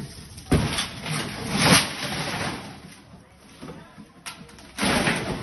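Shop goods and display fittings being knocked about: a sharp bang about half a second in, a louder crash and clatter around the two-second mark, and another loud crash near the end.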